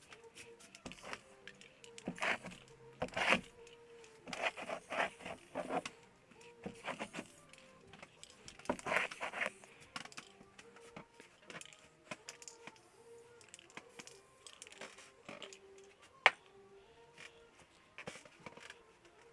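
Gloved hands working thick acrylic paint on a small canvas: irregular scraping, rubbing and rustling, heaviest around two to five seconds in and again near nine seconds, with one sharp click about sixteen seconds in.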